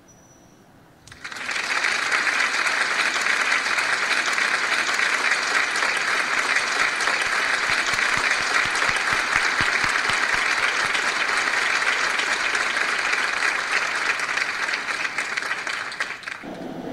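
Audience applauding: dense clapping breaks out about a second in, holds steady, then stops fairly abruptly near the end.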